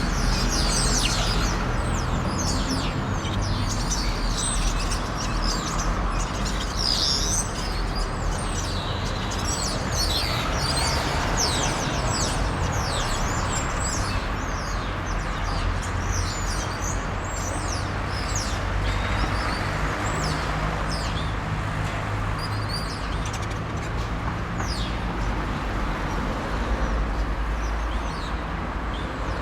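Outdoor night ambience: a dense chorus of short, high chirps repeating throughout, over a steady low hum.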